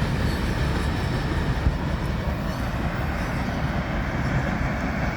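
Freight cars of a mixed manifest train rolling past on the rails, a steady rumble and rail noise.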